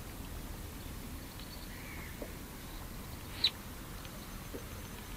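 Quiet ambience: a low steady rumble, a faint bird call about two seconds in, and a single sharp click a little after three seconds in.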